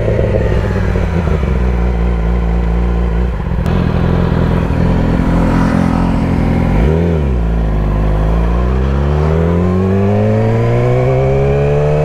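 Sport motorcycle engine running at speed, with wind rushing over the helmet camera. About seven seconds in the revs dip sharply and come straight back, then the engine pitch climbs steadily as the bike accelerates.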